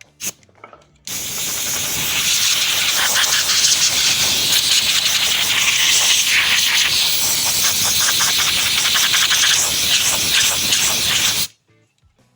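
A short burst of pressurised spray, then a loud, steady hiss of spray lasting about ten seconds that cuts off suddenly, as when cleaning brake parts.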